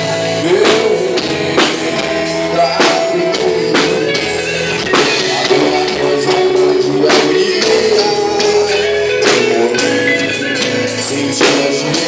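Gospel song played by a band: a steady drum beat with tambourine under sustained melody lines, the instrumental lead-in before the vocals.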